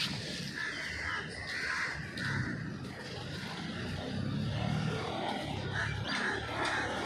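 Crows cawing, a quick run of caws in the first couple of seconds and a few more near the end, over steady outdoor background noise.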